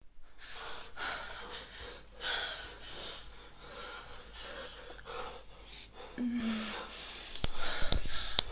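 A person breathing heavily, in noisy breaths about once a second, with a short hummed voice sound about six seconds in and a few sharp clicks near the end.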